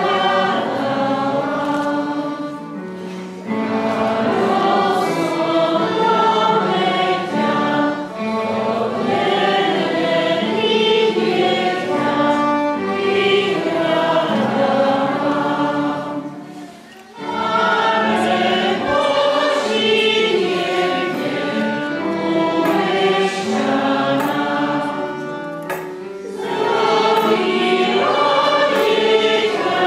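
Choir singing a Christmas carol, with a short break between phrases about halfway through.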